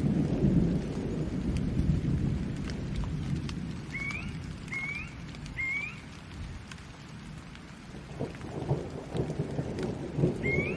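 Steady rain with thunder rumbling, strongest in the first few seconds and again near the end. Three short rising chirps sound in quick succession about four seconds in, and one more comes near the end.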